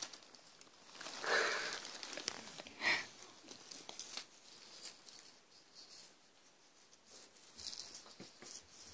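Faint rustling and handling noises, with a soft hiss about a second in and a short scrape near three seconds.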